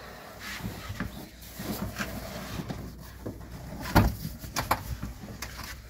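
Folded rear seat of a car being lifted out through the back door: scattered knocks and rustling as the seat frame and fabric bump and rub against the door opening, with one louder knock about four seconds in.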